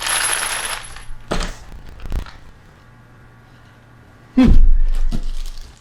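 Hardware and packaging being handled: a rustle, a couple of light knocks, then a loud, deep thump about four seconds in.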